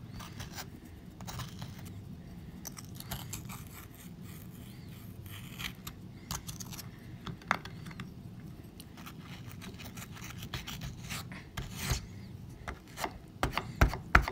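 Hand digging tool scraping and picking at a soaked, crumbling dig-kit block in a glass dish of water: irregular scratchy rubbing with light clicks, and a cluster of louder knocks near the end.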